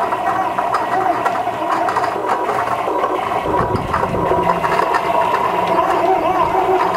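Home-built Tantillus Plus 3D printer running a high-speed print, its stepper motors whining at shifting pitches as the print head moves quickly back and forth over a steady mechanical whir. A deeper hum joins a little past halfway.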